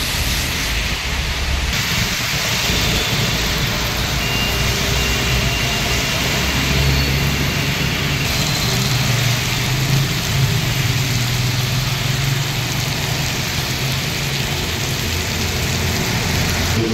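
Steady rain with cars driving along a wet road: an even hiss of rain and tyres on standing water over a low engine rumble.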